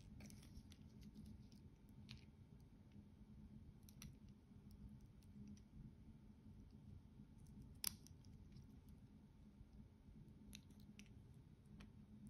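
Faint metallic clicks and light rattles from the Emporio Armani AR11360's stainless steel bracelet links and deployant clasp as they are handled in the fingers. One sharper click comes about eight seconds in, as the fold-over clasp is snapped open.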